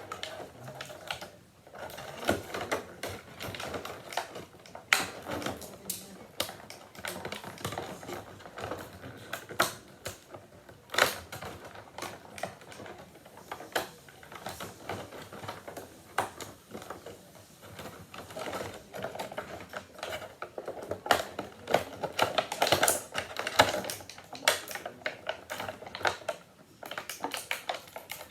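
Plastic action-figure packaging and zip ties being handled and pulled at by hand: irregular clicking, crackling and rustling of plastic, with a few sharper knocks.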